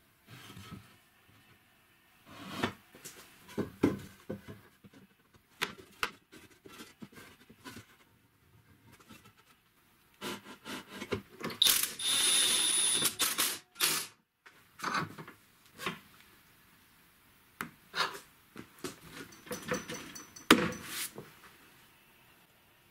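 Scattered knocks and clicks of boards and tools being handled. About halfway through, a cordless drill runs steadily for about two seconds, turning the screw of a converted car-jack clamp that presses the glued boards together.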